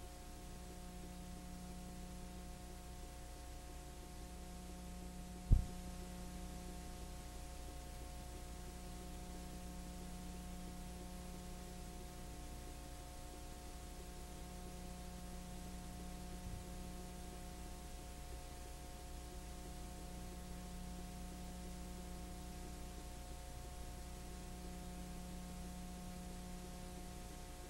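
Steady electrical hum with a faint hiss, a low tone in it swelling and fading every few seconds, and one sharp click about five and a half seconds in.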